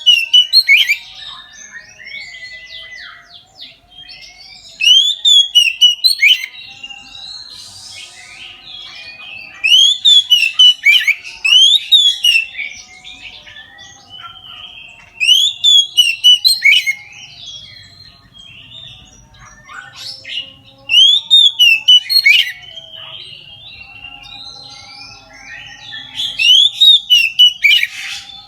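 Oriental magpie-robin (kacer) singing in loud, open full song. Bursts of rising and falling whistled phrases come about every five seconds, with softer chattering between them.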